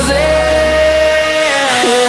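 Background pop song: a singer holds one long note over the backing track, and the bass drops out near the end.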